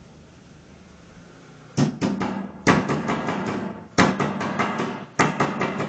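A kitchen knife chopping quickly on a cutting board: runs of rapid, sharp knocks, several a second, starting about two seconds in and broken by short pauses.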